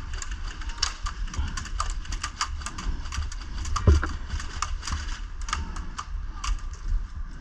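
Airsoft guns firing: many sharp snapping shots, irregular and sometimes in quick strings, with one louder shot about four seconds in.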